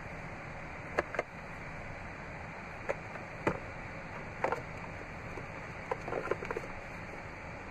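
Plastic clicks and knocks from a 2015 Chevrolet Silverado's glove box as it is unlatched and opened and the owner's manual packet inside is handled, a few separate clicks and then a quick cluster near the end, over a steady hiss.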